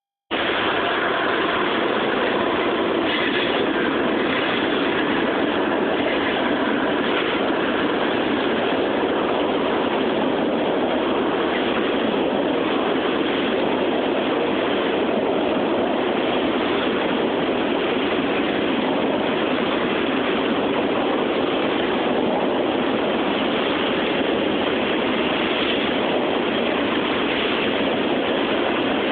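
Freight train of tank cars rolling slowly across an overhead railroad bridge: a steady, even rolling noise of wheels on rails.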